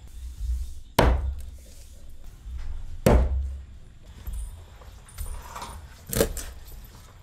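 Cleaver chopping frog meat on a round wooden chopping board: three heavy chops, about a second in, about three seconds in and near the end.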